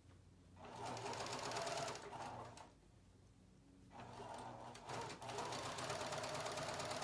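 Electric sewing machine stitching in two runs: it sews for about two seconds, stops for just over a second, then starts sewing again about four seconds in.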